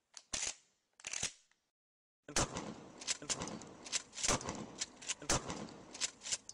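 Gunshots: two single shots about a second apart, then from about two seconds in a fast, uneven string of shots, two or three a second, with the sound carrying on between them.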